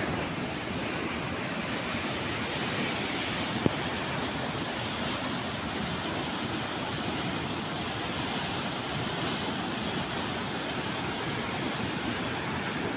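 Water pouring out of a dam outlet and churning into white foam below, a steady loud rush. A single brief click sounds about three and a half seconds in.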